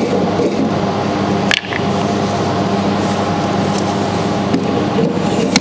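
Steady fan hum from a running laser-welder water chiller, with a sharp click about one and a half seconds in and another at the very end.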